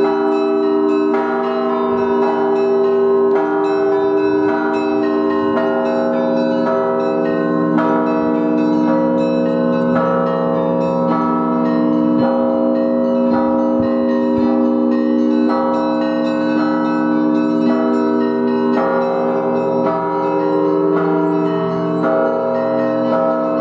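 Russian Orthodox church bells rung together from a belfry: many bells of different pitches struck in a fast, continuous peal, the small bells striking several times a second over the sustained ringing of the larger ones.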